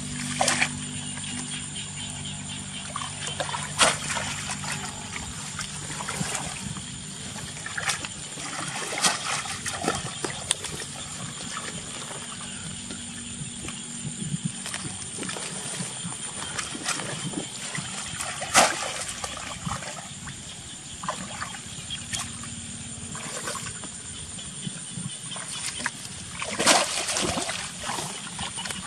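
Water splashing and sloshing irregularly, with a few sharper, louder splashes, as a fishing net is worked in water.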